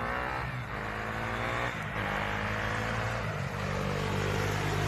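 KTM Duke 390's single-cylinder engine accelerating hard toward the listener, the note breaking briefly twice as it shifts up a gear. It grows steadily louder as the bike approaches.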